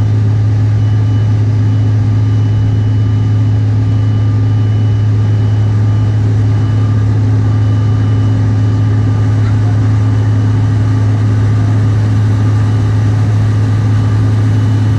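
Cabin noise of a Bombardier CRJ900 climbing after takeoff: the steady drone of its rear-mounted GE CF34 turbofans and the rushing air, with a strong low hum and faint steady whines above it.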